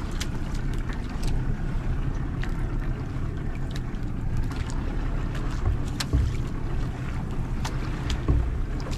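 Fishing boat's engine running steadily at sea, with wind noise on the microphone and scattered sharp ticks and taps.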